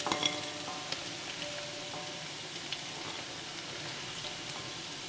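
Hot cooking oil in a pan sizzling steadily with scattered small pops and crackles, from frying tempe.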